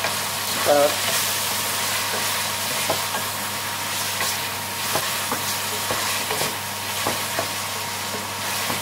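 Sliced onions and whole spices frying in hot vegetable oil in a metal pot, with a steady sizzle, stirred by a wooden spoon that scrapes and knocks against the pot's side in scattered clicks.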